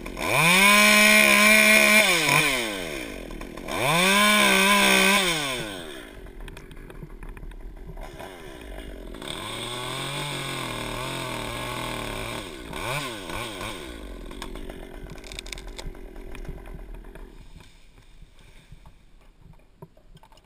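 Stihl top-handle chainsaw run hard in two bursts of about two seconds each, pitch rising then dropping, as it cuts through alder branches. After that it runs quieter and lower with one short rev, then eases back down.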